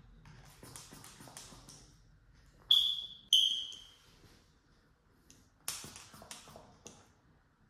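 Hand vacuum pump working clear plastic cupping cups on a patient's back. Two short, sharp whistling squeaks of air come about half a second apart, three seconds in. Near the end there is a quick run of about half a dozen clicking pump strokes.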